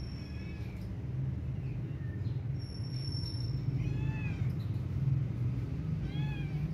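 A cat meowing three times in short calls that rise and fall in pitch: once about half a second in, again about four seconds in and once more near the end, over a steady low hum.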